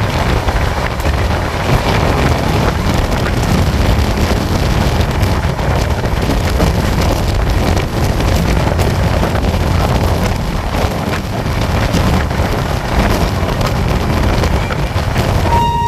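Wind buffeting the microphone held out of the side of a moving passenger train, over the steady rumble of the coaches running on the track.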